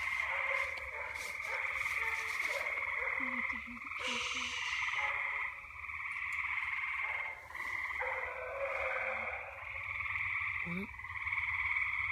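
A night chorus of frogs calling steadily.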